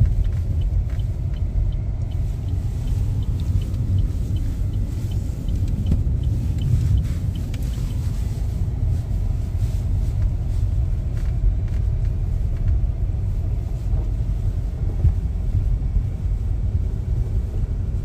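Steady low rumble of a car driving, heard from inside the cabin, with faint light ticking through the first half.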